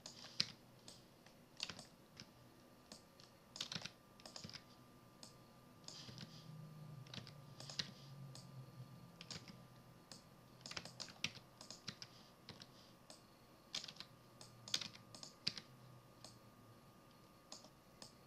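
Faint, irregular clicking of a computer keyboard and mouse as a Maya animation rig is worked.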